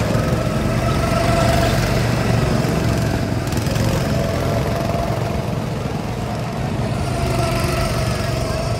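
Several go-kart engines running as the karts lap the track, a steady small-engine drone that eases slightly near the end.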